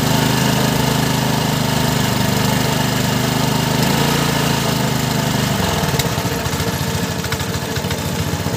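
Small single-cylinder petrol engine of a rice thresher running steadily, running on petrol. About six seconds in, its steady note breaks up into a rougher, uneven pulsing.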